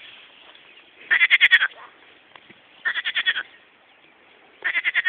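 Frogs calling: short trains of rapid pulses, each about half a second long, three of them about two seconds apart.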